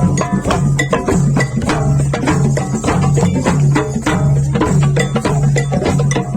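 Music with a steady percussive beat: a low note pulsing about twice a second under dense clicking percussion.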